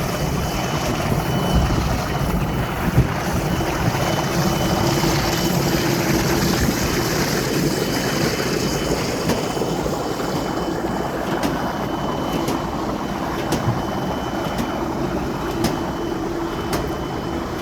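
Industrial fruit-washing machine running: a steady mechanical noise with a faint hum, and a few sharp ticks in the second half.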